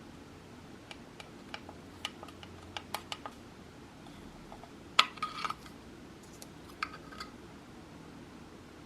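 Handling noise: a scattered run of light clicks and taps, with one sharper clack about five seconds in, over a faint steady hiss.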